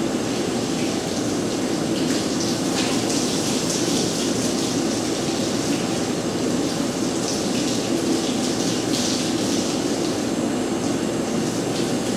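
Self-service dog-wash station running with a steady motor drone, and water from its hand sprayer hissing and splashing over a wet dog in the stainless steel tub.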